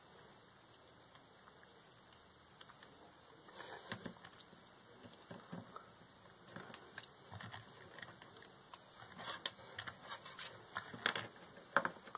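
Faint, irregular small clicks and taps of hands handling a micro servo, its wires and the plastic RC car chassis, starting about three seconds in and getting busier toward the end.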